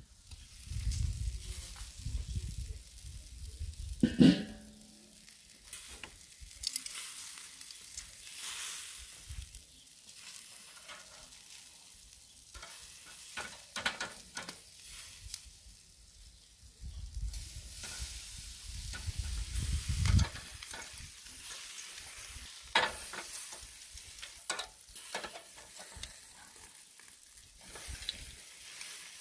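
Lamb chops sizzling on a charcoal kettle grill, with metal tongs clicking and scraping against the grate as the chops are turned. A loud metallic clank with a brief ring about four seconds in.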